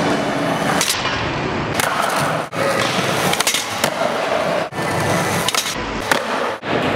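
Skateboard wheels rolling across a smooth concrete skatepark floor, with a few sharp clacks of the board hitting the ground. The sound breaks off briefly several times.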